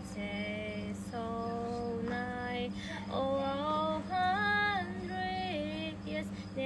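A girl singing solo and unaccompanied, slow long held notes with wavering turns between them, over a steady low hum.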